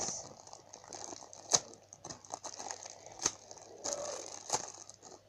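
Plastic packaging crinkling and rustling as it is handled, with a few sharp clicks.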